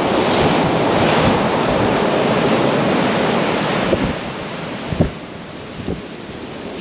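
Waves breaking and washing up a shingle beach, with wind buffeting the microphone. The rush is loudest for the first few seconds and eases after about four seconds, with a few brief thumps.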